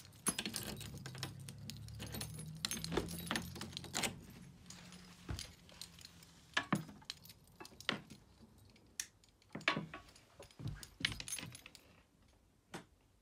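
A bunch of keys jangling as a key is worked into the lock of a wooden door's T-handle, followed by scattered light clicks and knocks of handling.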